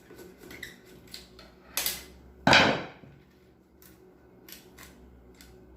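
Small clicks and taps of tools being handled on a power tool, with two loud knocks about two seconds in; the second is the loudest and rings briefly.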